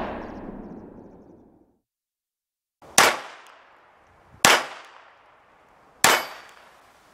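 Three pistol shots from a Sig Sauer Mosquito .22 LR, about a second and a half apart, each followed by a short fading echo. At the start, the long fading tail of a louder bang is still dying away.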